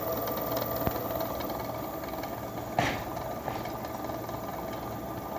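Treadmill drive motor running steadily with a motor hum, driven again by a control board whose failed power MOSFET has been replaced. A brief click about a second in and a short scrape-like noise near three seconds.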